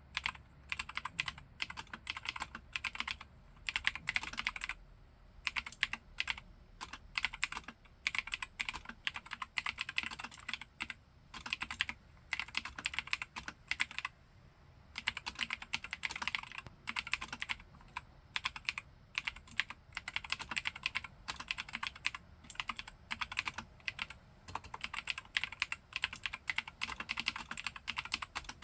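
Typing on a Keychron K4 aluminium mechanical keyboard with spray-lubricated Gateron Blue clicky switches: fast runs of keystrokes in bursts, with brief pauses between them.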